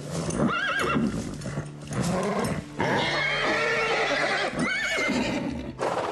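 A horse whinnying and neighing several times in shrill rising-and-falling calls, with knocks of its hooves in the stall. The horse is agitated and restless.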